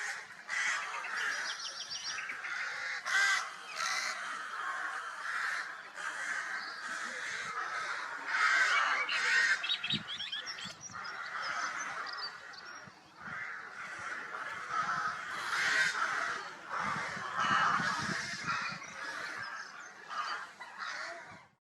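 Many marsh birds calling at once, with one call overlapping the next and higher trilling calls heard now and then.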